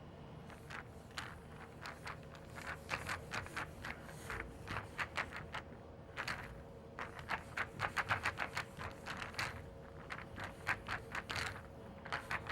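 Pool balls rolling and clacking against one another: many sharp, irregular clicks, often in quick runs of several, over a faint steady hum.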